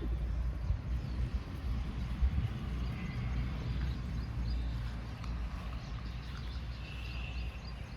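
Outdoor rural ambience: a steady low rumble, with short high bird calls about three seconds in and a longer one near the end.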